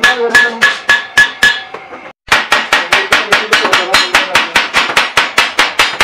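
Rapid hammering on a rolled sheet-metal water-heater shell: a string of sharp metal blows, about four a second, the sheet ringing under the first ones, broken by a short silent gap about two seconds in.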